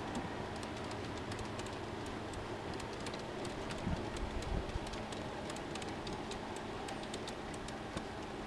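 G-scale model freight train rolling past on garden track, its wheels clicking irregularly over the rail joints against a steady rushing background.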